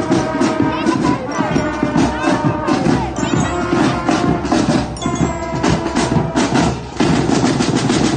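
Marching band playing as it passes, with brass (trombones and sousaphones) over a drumline of snare and bass drums. The drums get louder near the end as the drumline comes by.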